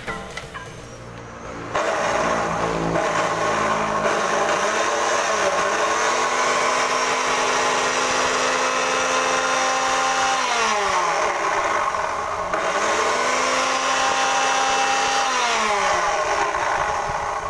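Cut-off grinder (chop saw) motor running loud with a high whine. Its pitch rises as it spins up, holds steady, then falls as it winds down, and the cycle happens twice.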